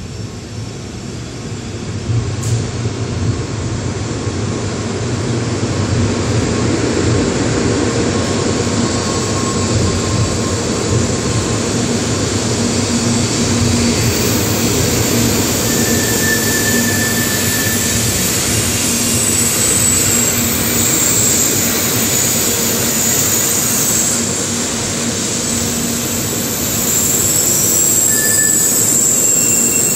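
N700 series Shinkansen pulling into a station platform and slowing to a stop, a steady loud running and rolling noise that builds over the first few seconds. About two-thirds of the way through, a high-pitched brake squeal sets in and holds as the train slows.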